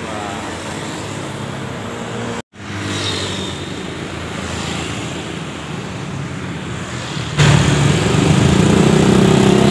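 Steady roadway traffic noise, broken by a brief cut-out about two and a half seconds in. About seven seconds in, a passing vehicle's engine comes in suddenly louder and stays close, its pitch rising slightly near the end.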